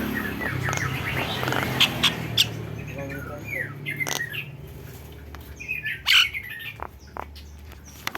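Nias hill myna calling in a tengkek buto style: a run of short, sharp squawks and quick falling whistles, broken by several loud sharp clicks, over a steady low hum.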